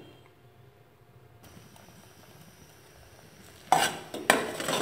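Steel ladle stirring and scraping in a steel pot of cola boiled down to a thick, tar-like syrup, with two loud clanks near the end. A faint sizzle from the boiling syrup sets in about a second and a half in.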